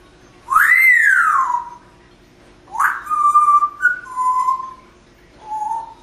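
African grey parrot whistling: a loud swooping whistle that rises and then falls, followed by a run of short, steady whistled notes at a few different pitches, and one short lower note near the end.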